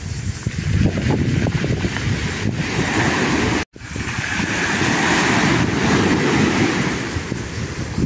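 Small sea waves breaking on the shore and washing up the beach in foam, a steady rush that swells as each wave breaks. Wind buffets the microphone. The sound cuts out completely for an instant a little before halfway.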